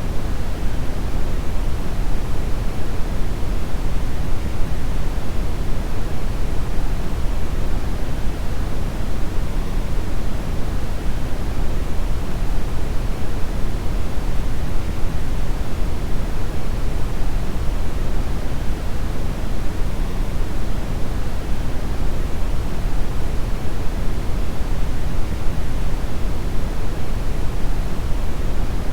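Steady brown noise: a continuous, even, deep rumbling hiss with most of its energy in the low end, unchanging throughout.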